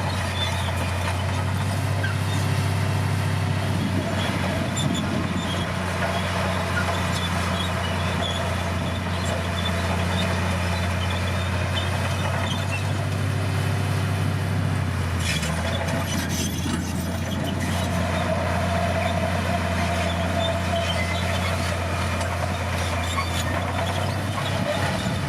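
Komatsu crawler bulldozer's diesel engine running steadily with a deep, even drone, along with light clicking from the machine, and a short clatter about fifteen seconds in.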